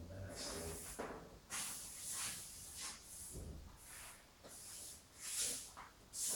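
A dry drawing stick scratching across paper on a flip-chart board in a run of irregular sweeping strokes, each a short hiss.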